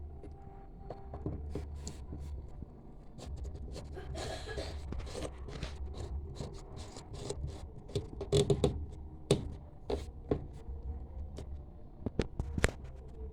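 Hands working on small parts: scattered clicks and light knocks with some scraping, the loudest cluster of knocks a little past the middle.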